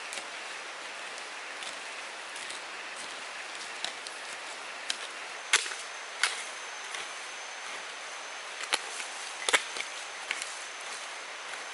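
Forest ambience, a steady high hiss, with a thin high tone joining about halfway through, broken by a handful of sharp cracks or knocks, the loudest about five and a half and nine and a half seconds in.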